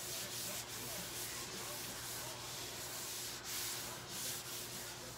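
Disinfecting wipe rubbed back and forth across a wooden tabletop by a gloved hand: a steady scrubbing hiss that rises and falls with the strokes.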